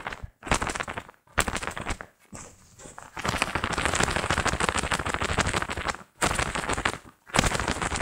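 A cloth glove flapped rapidly by hand to imitate a bird's wing beats: a fast fluttering crackle in several runs with short pauses between them.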